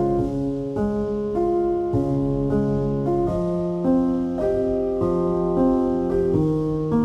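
Background piano music, moving to a new note or chord about every half second.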